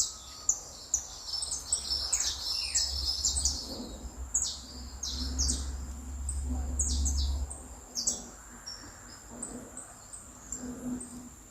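Several small songbirds chirping and twittering, quick high-pitched chirps overlapping one another, over a low rumble that stops about two-thirds of the way through.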